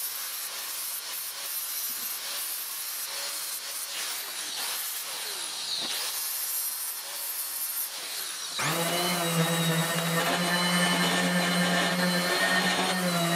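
Angle grinder with a flap disc grinding the rusty steel bit of a double-bit axe head, its pitch sliding up and down as it is pressed into the metal. About two thirds of the way through this gives way suddenly to the louder, steady hum of a random orbital sander smoothing the axe head.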